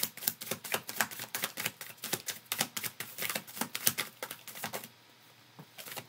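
Tarot deck being shuffled by hand, the cards making a rapid run of light clicks that stops about five seconds in and starts again just before the end.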